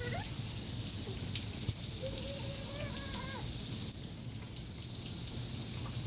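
Steady rain falling, an even hiss of many small drops. A faint, drawn-out voice-like call sounds between about two and three and a half seconds in.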